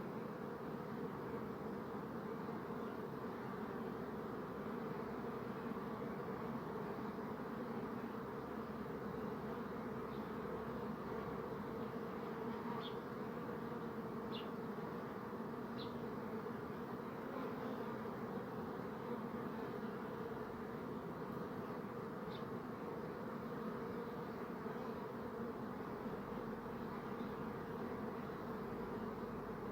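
Bees buzzing: a steady, dense hum of many wings that holds an even pitch throughout. A few faint, short high chirps sound briefly in the middle.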